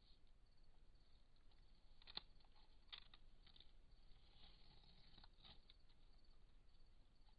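Faint, scattered clicks and crunches of a brown hyena chewing and tearing at a zebra carcass, against near silence.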